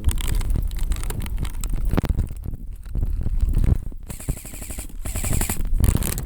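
Airsoft guns firing in rapid bursts of shots, the bursts broken by brief pauses.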